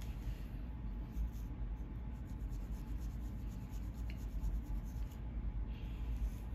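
Fine-tooth plastic comb scratching along a dry, flaky scalp, a quick run of short scraping strokes lifting dandruff, over a steady low hum.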